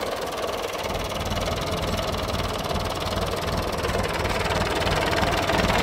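Old tractor engine running steadily under way, growing gradually louder as the tractor comes closer.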